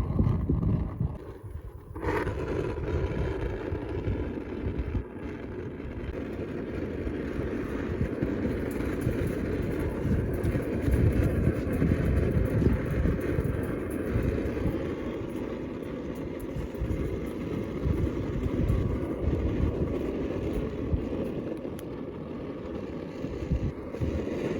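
Handheld gas burner torch starting about two seconds in, then its flame hissing steadily.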